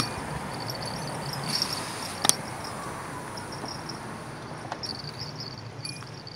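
Bicycle riding over pavement: steady road and wind rumble, with patches of fast, fine high ticking from the rear freewheel while coasting. A sharp knock at the very start and another about two seconds in, as the bike and phone mount jolt over the road.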